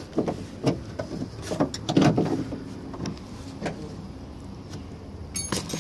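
Scattered light clicks and knocks of plastic door-trim parts being handled and pried, with a quick cluster of sharper clicks near the end.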